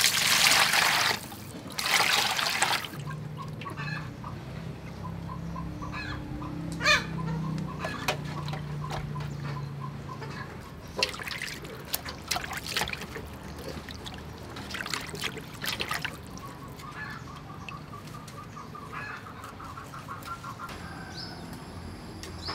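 Water poured from a jug over a raw whole chicken in a metal pot, two loud pours in the first three seconds. Then water sloshing and splashing in a metal basin as the chicken is washed by hand.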